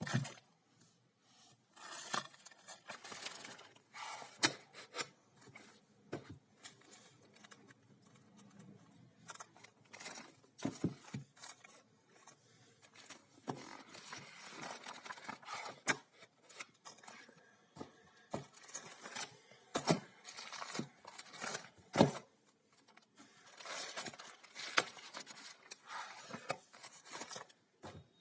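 Books and their paper and plastic packaging being handled and unpacked: irregular rustling and scraping with many sharp taps and clicks.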